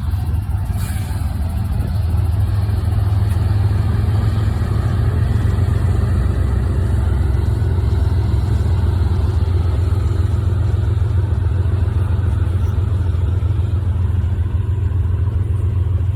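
Strong wind buffeting the microphone during an e-bike ride: a loud, steady low rumble.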